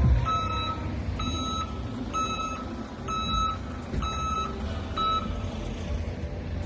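Vehicle reversing alarm beeping: six beeps at one pitch, about one a second, stopping about five seconds in.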